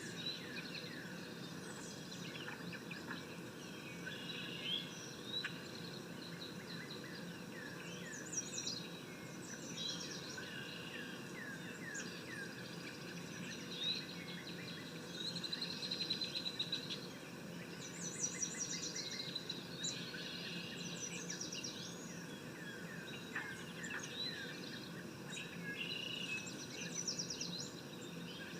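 Forest swamp ambience: many birds chirping and calling in quick rising and falling notes over a steady drone of insects, with busier flurries of calls now and then.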